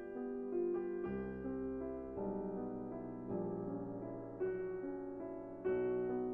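Background piano music, a slow melody of sustained notes.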